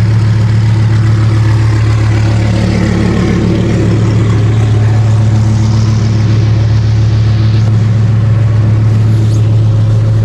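Turbocharged car engine idling steadily, a loud, even low hum.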